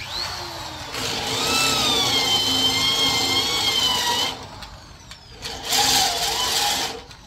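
Electric drill boring a hole through a small metal plate, the bit squealing with a wavering pitch as it cuts. One long run of about three seconds, then a shorter burst near the end.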